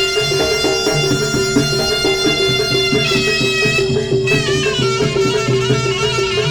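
Javanese jaranan gamelan music: a reedy wind instrument holds a long melody line that steps to a new pitch about halfway through, over a steadily repeated metallic note and hand-drum beats.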